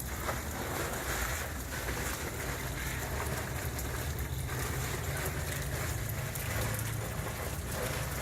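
A well-drilling rig's air compressor runs steadily, its engine humming low under a continuous rush of air and water blown up out of the borehole.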